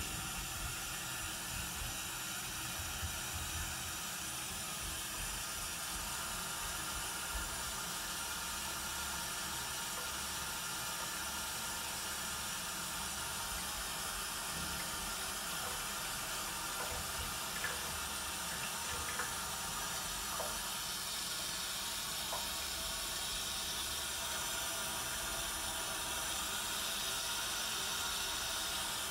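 Thin stream of water from a bathtub faucet running steadily into shallow water in the tub, a constant splashing hiss.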